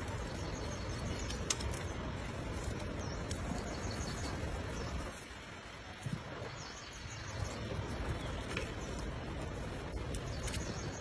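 Outdoor forest ambience: a steady low rumble with faint, short high bird chirps now and then.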